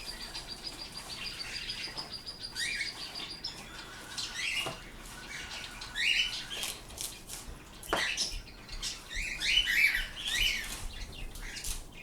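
Pet birds chirping, short repeated calls coming in clusters, with a thin steady high tone for the first few seconds. Two sharp clicks, about five and eight seconds in.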